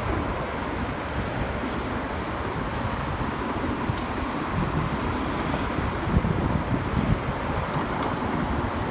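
Wind rushing over the microphone with road and traffic noise while riding a GoTrax GXL electric scooter, with a couple of louder low bumps about six and seven seconds in.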